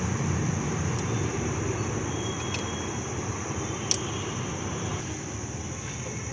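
Steady low background rumble with a constant high hiss, and a few light metallic clicks as parts on the engine's cylinder head are handled; the sharpest click comes about four seconds in.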